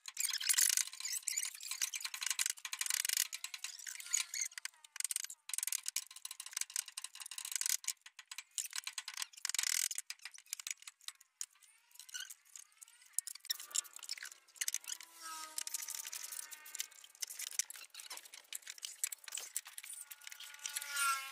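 Steel tie wire being twisted around rebar with a hand tool: a run of light metallic clicks, scrapes and rattles. In the second half come faint wavering squeaks.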